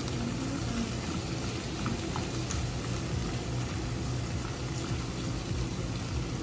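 Canned tuna and chopped onions sizzling steadily in a nonstick frying pan while being stirred with a wooden spoon.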